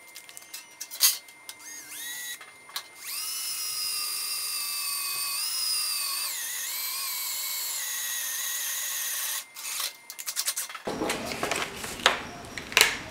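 DeWalt cordless drill drilling through thin 26-gauge sheet metal. After a few short trigger blips it runs with a steady whine for about six seconds, its pitch dipping briefly about halfway through, then stops. Clicks and clatter follow as the drill is handled.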